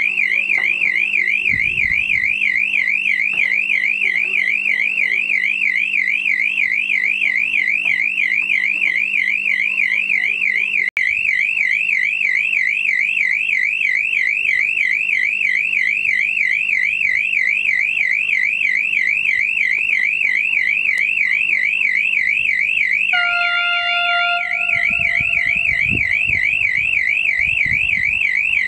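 Railway level-crossing warning signal: a loud electronic tone warbling rapidly up and down without a break. About 23 seconds in, the approaching diesel train's horn sounds on one steady pitch, strong at first and then fading over several seconds, and the low rumble of the train begins to build.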